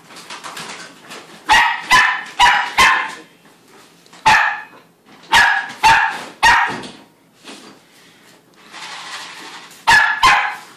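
Shetland Sheepdog puppy barking sharp, high barks in quick runs of two to four, about ten in all, demanding her food at feeding time.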